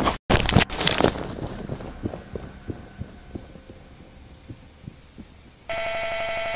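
Hurried footsteps and camera-handling noise for about the first second, fading into soft low thumps a few times a second. About five and a half seconds in, a steady electronic buzz of tape-glitch static cuts in suddenly.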